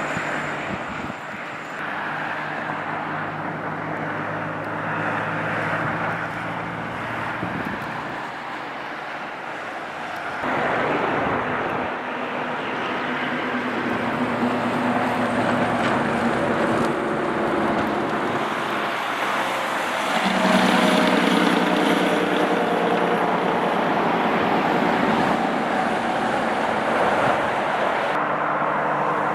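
Car engine and tyre noise heard from inside the cabin while driving slowly on an icy, snow-covered road. The engine pitch shifts up and down, with a louder stretch about two-thirds of the way through.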